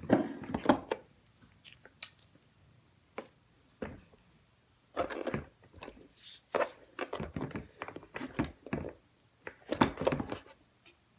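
Homemade slime being squished and worked by hand: irregular sticky clicks and squelches in several clusters, loudest near the start and again near the end.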